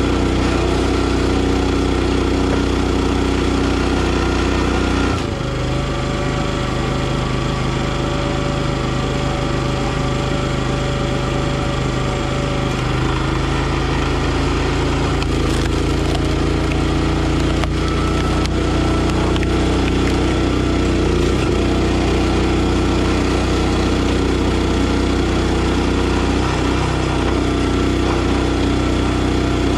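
Engine of a NorthStar 37-ton log splitter running steadily. Its note shifts several times while the hydraulic ram is worked through firewood rounds.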